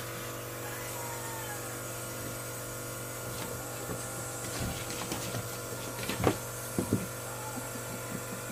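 Steady machine hum with several fixed tones, like a household appliance running, with a few light clicks and taps as a cat plays on a tile floor, clearest about six to seven seconds in.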